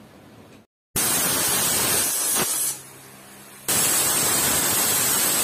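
Pressure cooker whistling twice: steam hisses out of the weight valve in two loud bursts of about two seconds each, the first starting about a second in and the second carrying a high whistle tone. It is the cooker venting at full pressure, the whistles that are counted while pressure-boiling mutton leg pieces.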